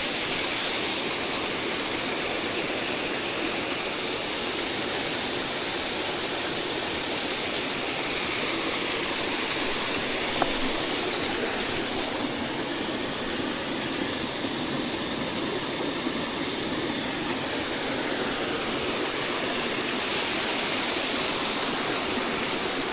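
Steady rush of a mountain trout stream's flowing water.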